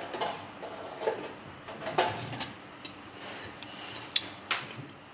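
Light scraping and clinking of a metal cooking pot being handled on the stovetop: several short scrapes and knocks spaced through, the sharpest near the end.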